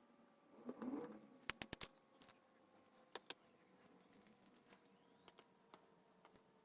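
Small metal lock parts and tools handled on a desk: a brief rustle about a second in, then a quick run of four sharp clicks, two more clicks a little later and a few faint ticks.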